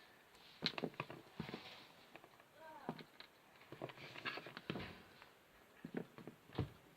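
Small rubber puzzle-eraser pieces being pulled apart and set down on a table: scattered soft clicks and taps with light rustling.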